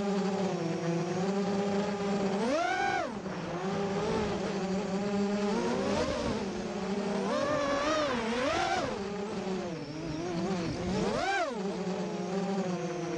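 FPV quadcopter's brushless motors and propellers whining. The pitch holds steady, then rises and falls with the throttle, with two sharp upward swoops about three seconds in and again near eleven seconds.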